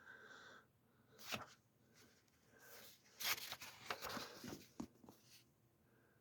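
Faint rustling of paper comic-book pages being handled and turned, in a short burst about a second in and a longer stretch about three seconds in.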